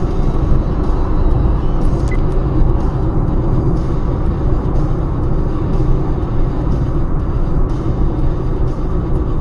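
Steady road, tyre and engine noise heard inside a car cruising at about 50 mph, mostly a low rumble.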